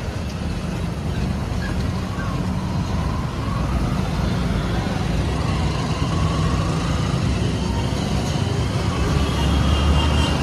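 Motorcycle engine and wind noise from a sport bike riding at low speed through city traffic, with the steady rumble of a bus and other vehicles close by.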